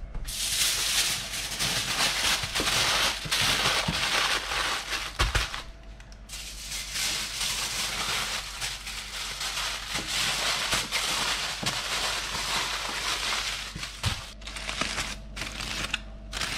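Kitchen aluminium foil crinkling and crumpling as it is folded and scrunched shut around pieces of fish, with a short pause about six seconds in and shorter bouts of crinkling near the end.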